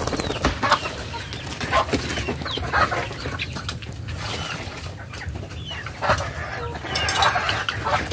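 Backyard chickens clucking, short calls repeating over and over, with a bird flapping its wings close by at the start.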